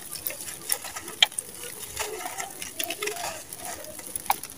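Dry sand-and-cement lumps crushed and crumbled by bare hands: irregular gritty crackles and crunches as the lumps break, with loose dry grit spilling down.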